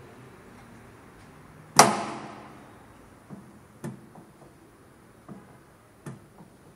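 Stainless-steel parts of a vegetable dicing machine knocking together as it is assembled by hand: one loud metallic clank about two seconds in that dies away over about half a second, then four lighter clicks and knocks.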